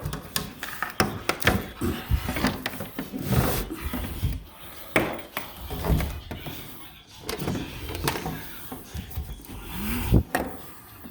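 Irregular knocks, taps and scraping from hands-on work, with no steady rhythm.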